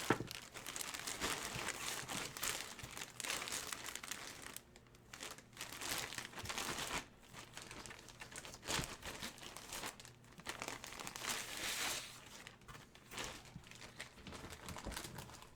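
Plastic packaging crinkling and rustling on and off as it is handled and peeled open, with a faint tearing now and then.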